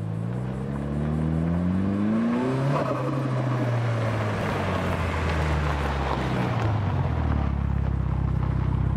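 Mitsubishi Lancer Evolution's turbocharged four-cylinder accelerating hard on a gravel road, its engine note climbing, then dropping about three seconds in, with loose gravel and tyre noise as it passes.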